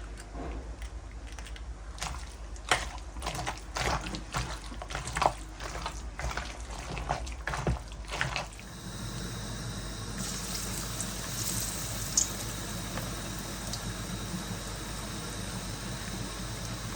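Pakora batter of onion, potato and spices being mixed in a bowl, with irregular wet squelches and clicks. About eight seconds in, this gives way to a steady sizzle with occasional crackles as the pakoras fry in hot oil.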